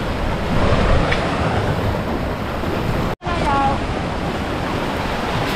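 Sea waves surging and breaking against a rocky shore, with wind buffeting the microphone.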